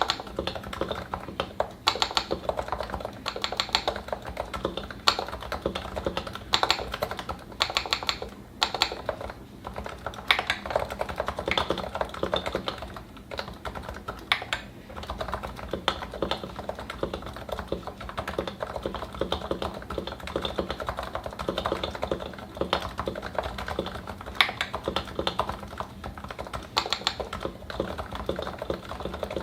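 Fast, continuous typing on a Realforce 87u keyboard with 55 g Topre switches, lubed and fitted with Novatouch sliders, in a Norbaforce aftermarket case with GMK keycaps. Keystrokes come in quick runs, with louder strokes scattered among them.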